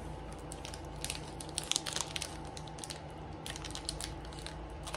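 Pokémon trading cards and a foil booster pack being handled, with light crinkling and clicks in clusters about a second in and again past three and a half seconds, over a low steady hum.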